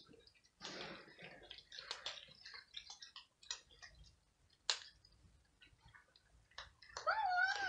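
Several cats crunching dry kibble: quick irregular crackling clicks. Near the end a cat gives one drawn-out meow, the loudest sound here.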